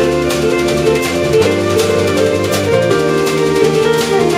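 Live jazz band playing: an electric guitar carrying the lead over electric bass, keyboard and a steady drum beat.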